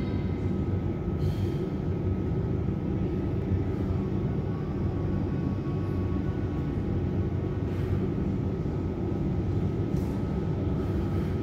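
Steady low rumble with a faint thin steady tone above it.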